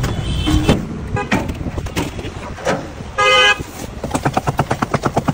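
Street traffic with one short vehicle horn honk about three seconds in. A quick run of sharp clicks or taps follows, several a second, near the end.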